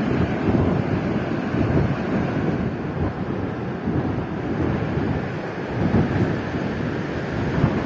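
Wind buffeting the microphone: a loud, uneven low rumble that comes in gusts.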